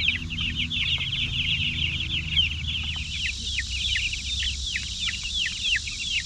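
A flock of Cornish cross broiler chicks peeping, a constant overlapping stream of short high peeps, each dropping in pitch, several a second.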